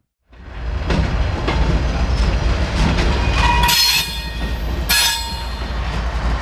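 CSX diesel-electric locomotive passing close by with its engine running in a low, steady rumble, its wheels squealing in high bursts about three and a half and five seconds in.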